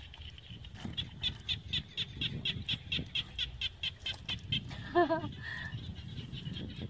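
A high chirping animal call repeating quickly, about five or six chirps a second, which stops about four and a half seconds in. A brief voice-like call follows about five seconds in, over a low rumble.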